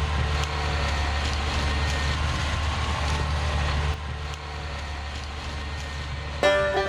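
Large farm machine's diesel engine running steadily, a low hum that gets quieter about four seconds in. Banjo music starts near the end.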